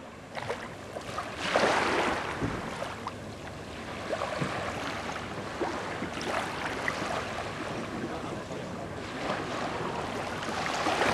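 Wind buffeting the microphone over water lapping and splashing, with gusts swelling about two seconds in and again near the end.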